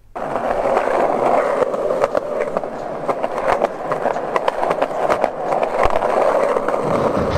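Skateboard rolling over pavement: a steady rolling noise from the wheels, with frequent sharp clicks from cracks and bumps in the ground.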